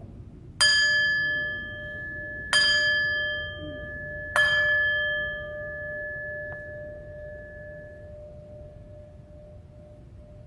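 Altar bell struck three times for the elevation of the chalice at the consecration, the strikes about two seconds apart, each ringing on and slowly fading, the lowest tone lingering longest.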